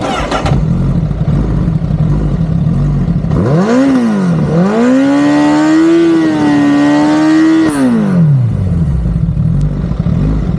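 Sportbike engine idling, blipped once, then revved up and held at steady raised revs for about three seconds before dropping back to idle: a static exhaust noise test, which this bike fails at 115 dB.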